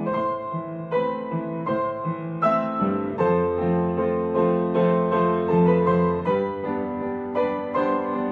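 Piano music: notes struck about twice a second over held chords.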